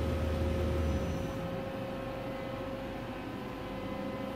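Hwacheon CNC lathe running, a steady mechanical hum with a constant high whine through it. A deeper hum is stronger for about the first second and then drops away.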